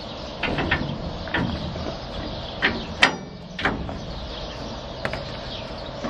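Irregular sharp clicks and knocks, about six of them with the loudest about three seconds in, from hand work tightening a part on the steel underside of a grain cart, over a steady low hum.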